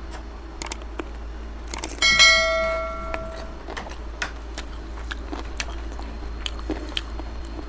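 A metal dish or utensil is struck once about two seconds in and rings, fading out over a second and a half, among scattered soft clicks and taps.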